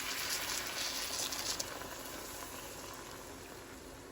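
Hot pan sizzling as chicken broth is poured in from a can. The sizzle fades after about a second and a half to quieter bubbling.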